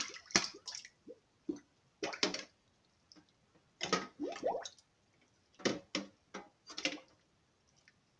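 Irregular short, wet squishing and dripping sounds, a few of them with a bending, squeaky pitch.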